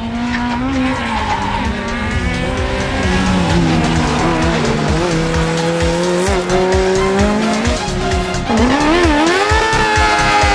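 Hatchback race car engine revving hard through a corner, pitch rising and falling with the throttle and held steady mid-corner, with tyres squealing as the car slides.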